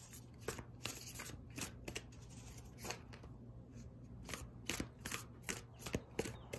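A deck of oracle cards being shuffled by hand: a run of light, irregular card snaps and flicks, several a second.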